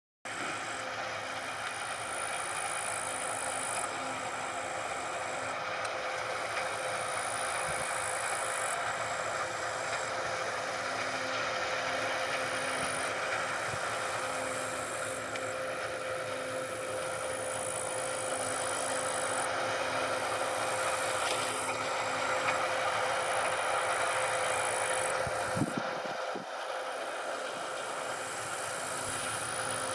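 Claas Lexion 670 combine harvester running steadily, a constant machine hum with a steady tone. A single sharp knock near the end.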